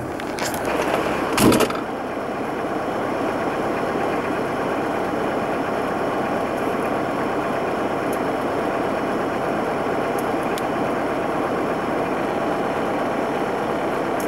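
Camper van engine running steadily, heard from inside the cab, after a short loud knock about a second and a half in.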